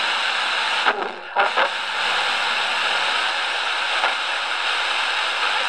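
Small FM radio speaker hissing with loud static as the tuning knob is turned between stations on weak reception. The hiss briefly breaks up about a second in.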